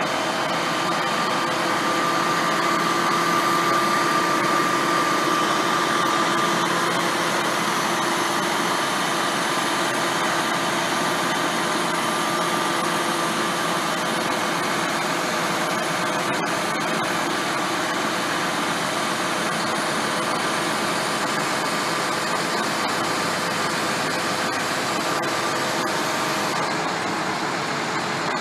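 Truck engine running steadily while the hydraulic reel loader's arm swings a steel cable reel, with a steady whine from the hydraulics, strongest in the first few seconds.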